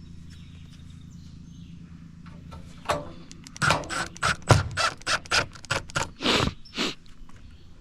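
A quick, irregular run of about a dozen knocks on steel roof panels, starting about three seconds in and lasting some four seconds, over a steady low hum.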